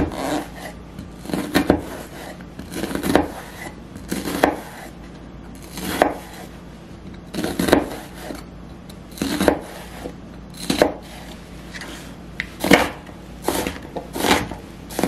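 Chef's knife slicing through half an onion and knocking down onto a thin plastic cutting mat on a countertop. About one cut every second and a half, coming a little quicker near the end.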